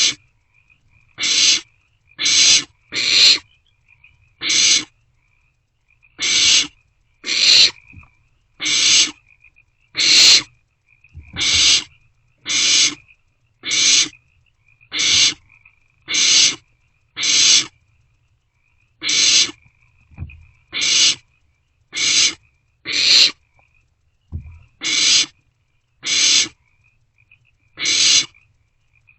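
Barn owlets giving their harsh, raspy, snore-like food-begging hisses, repeated about once a second in loud bursts of half a second each as they compete over a vole.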